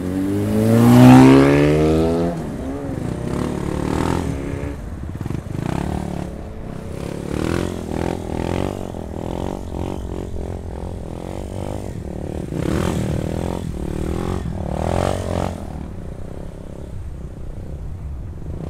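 Motorcycle engine revving up hard, loudest about a second in, then running on with its revs rising and falling several times.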